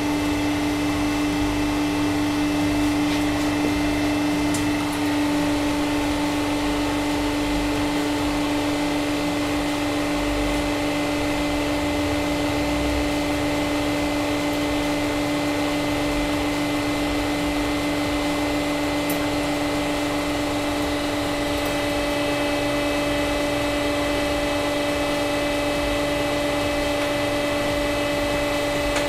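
Home-made hydraulic press's pump unit running with a steady hum and a constant tone, while the pressure is slowly built up through the regulator valve.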